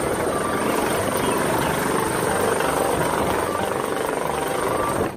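Large helicopter hovering just above a helipad, its rotor and engines running steadily with a thin high whine over the rotor noise.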